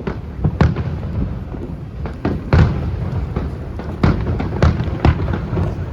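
Fireworks display: a string of aerial shell bursts, about eight sharp bangs at uneven spacing, each followed by a rumbling echo, over a continuous low rumble of further bursts.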